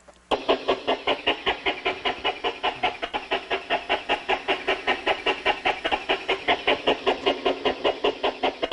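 Recorded example of loudspeaker air noise: a fast, even train of hissing puffs, about six a second, as air is pushed out through a leak in a moving-coil driver's dust cap on each stroke of the cone. It starts abruptly about a third of a second in.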